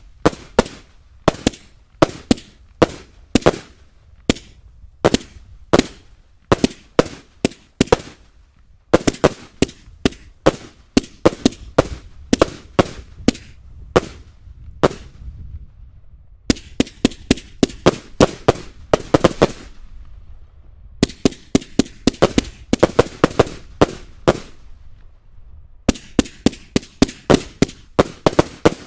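Hallmark Blue Lagoon multi-shot firework cake firing, a long run of sharp bangs about two a second, breaking several times into quicker rapid volleys with short pauses between.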